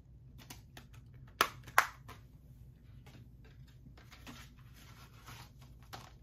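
Plastic 4K Blu-ray keep case being handled and closed: two sharp plastic snaps close together about a second and a half in, then softer scattered clicks and light handling noise.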